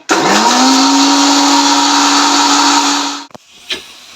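Electric mixer grinder (mixie) grinding cashews, poppy seeds, melon seeds and sesame into a paste: the motor spins up quickly to a steady high whine, runs about three seconds and cuts off, followed by a single click. The paste is not yet fully ground after this short run.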